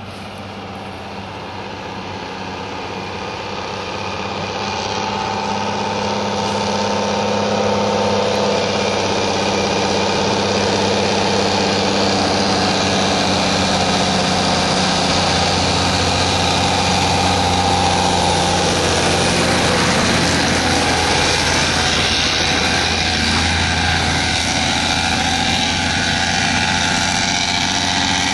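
Heavy diesel truck engine running, growing louder over the first several seconds and then holding steady, with a shift in its pitch about twenty seconds in.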